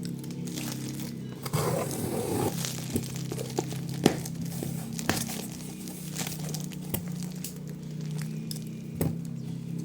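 Packaging crinkling and tearing as a new product box is opened, loudest about two seconds in, with scattered sharp clicks of handling, over steady background music.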